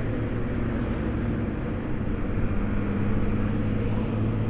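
Honda Beat scooter's single-cylinder engine running steadily while riding, with wind and road noise rushing over the microphone.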